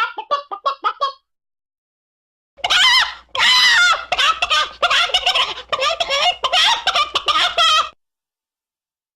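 Chickens clucking and squawking in quick, pitched calls: a short run at the start, then after a gap of dead silence a longer, dense, loud stretch of squawks lasting about five seconds over a faint low hum.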